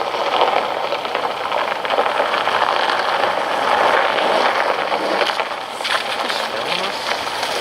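Steady static hiss from a handheld radio scanner between dispatch transmissions. No siren tone is heard.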